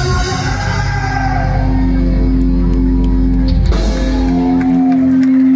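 Punk rock band playing live. A guitar note is held and left ringing for several seconds over drums and cymbal strikes, and the deep bass drops away about four seconds in.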